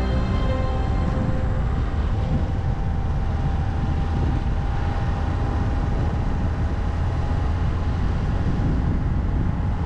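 A car driving on the road: a steady low rumble of engine and tyre noise.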